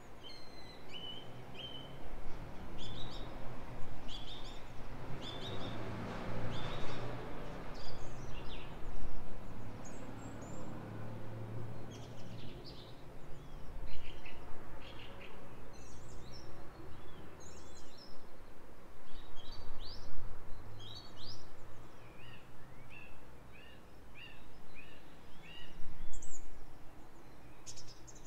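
Wild birds chirping and singing in short, repeated phrases throughout, over a rising and falling rush of wind that swells for several seconds in the first half.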